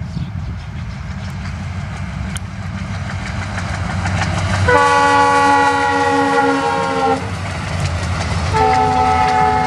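ALCO diesel locomotive passing under power with a steady low engine rumble. Its multi-tone horn sounds a blast of about two and a half seconds halfway through, and a second blast begins near the end.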